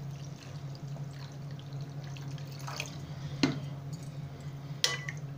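Chilled water pouring from a plastic bottle into a glass bowl of sattu paste, then a steel spoon stirring the thin batter, with a couple of sharp clinks of the spoon against the glass bowl in the second half. A steady low hum runs underneath.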